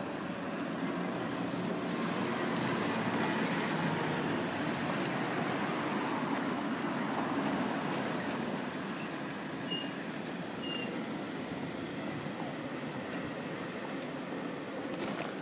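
Wheelchair wheels rolling over rough tarmac and paving, a steady noise of wheels on the ground that gets louder for a few seconds in the middle.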